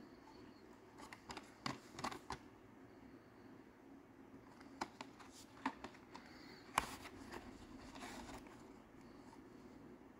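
Hot Wheels blister-pack cards, cardboard backing and plastic bubbles, being handled and shuffled: scattered light clicks and rustles in two clusters, the sharpest click about two-thirds of the way through.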